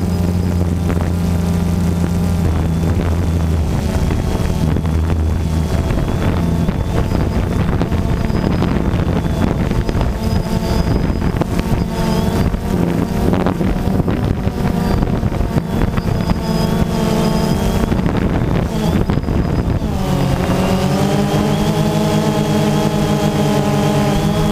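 DJI Phantom 2 quadcopter's electric motors and propellers buzzing steadily in flight, heard from right under the rotors. About twenty seconds in, the pitch dips and then climbs again.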